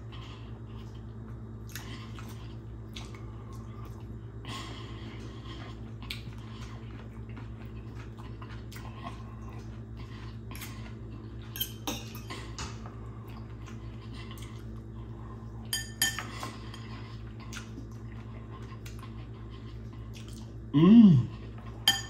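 Metal fork clicking and scraping against a plate and a glass salad bowl while someone eats, with a few sharper clinks and a steady low hum underneath. About a second before the end, a loud hummed "mmm" of enjoyment from the eater.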